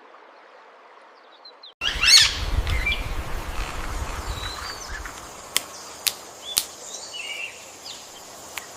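Jungle ambience with birds chirping and calling. About two seconds in it starts with a sudden loud rush and low rumble that fades over a few seconds, and a few sharp clicks come later.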